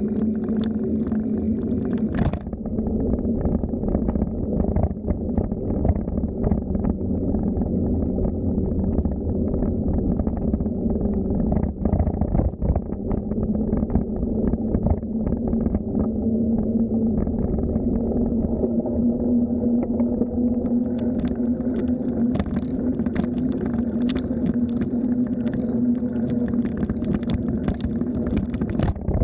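Steady rumble of wind and tyre noise picked up by a camera riding along on a bicycle, with a low hum under it. Small clicks and rattles run through it, growing more frequent near the end.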